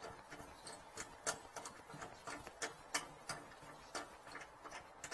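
Pen-type voltage tester held against a cable, giving faint quick clicks about three times a second.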